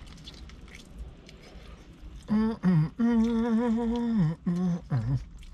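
A man humming 'mmm' with his mouth full while eating fried chicken: a couple of short hums, then one long, slightly wavering hum and a last short one, an appreciative sound at the taste. Faint chewing noises come before the humming.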